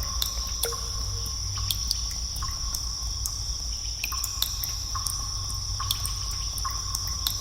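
Water dripping in a cave: irregular drops, a few each second, some ringing briefly with a short pitch. Under them runs a steady low rumble and a constant high hiss.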